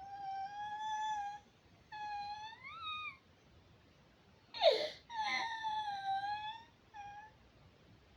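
A toddler whining and wailing without words: a few long high-pitched wails, one rising at its end, then a sharp falling cry about halfway through, followed by a longer wail and a short one.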